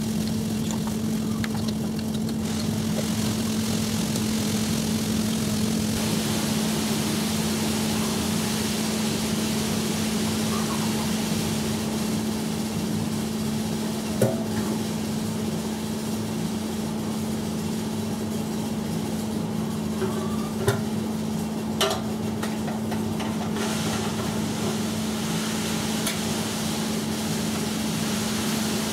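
The small air-cooled engine of a Karumo GC-K300 slope mower idling steadily, with a constant hum. A few short knocks come around the middle.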